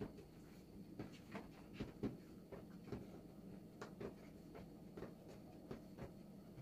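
Faint, irregular light taps and scrapes of hands and kitchen utensils working on a board, about one to three soft knocks a second.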